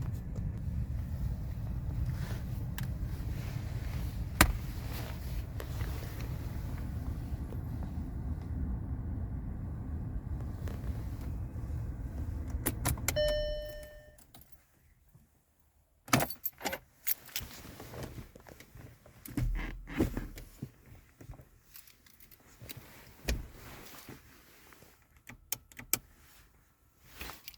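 Audi A4 B8 engine idling with a steady low rumble. About 13 seconds in, a short beep sounds and the engine is switched off. After that come scattered clicks, knocks and the jangle of keys.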